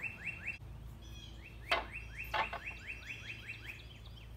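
Two sharp wooden knocks, a little over a second and a half in and again under a second later, as cut pine baluster pieces are set down on the deck framing. A songbird sings a fast trill of short rising notes, about five a second, at the start and again through the middle.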